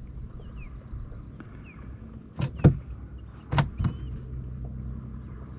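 Four sharp knocks on the boat around the middle, then an electric trolling motor starts running with a steady low hum.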